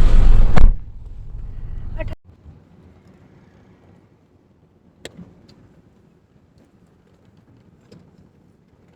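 Loud vehicle noise from riding in a car, cut off suddenly under a second in. A quieter steady hum follows and stops abruptly about two seconds in, leaving near silence with a few faint clicks.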